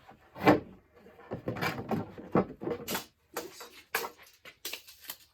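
A run of short knocks, taps and scrapes from rocket airframe parts being handled and marked with a marker; the loudest knock is about half a second in.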